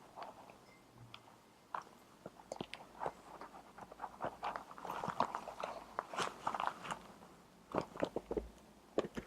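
Clip-on microphone rubbing against the fabric of a dress, giving irregular crackles and scratchy rustles, thickest in the middle stretch.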